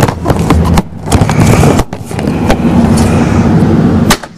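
Footsteps and scrapes on concrete, heard as scattered sharp clicks over a steady low rumble.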